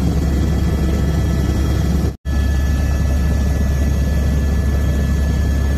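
Helicopter cabin noise in flight: a steady, loud, deep drone from the rotor and turbine, with a steady high whine over it. The sound cuts out for an instant about two seconds in.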